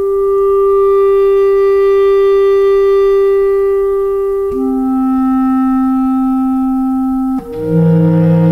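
Slow ambient music of long held notes. One sustained note gives way to a lower one about halfway through, and a fuller, lower chord comes in near the end.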